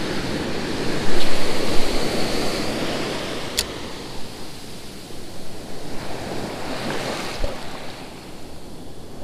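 Ocean surf breaking and washing up a sandy beach: the wash surges about a second in, then slowly dies away. A single sharp click comes about three and a half seconds in.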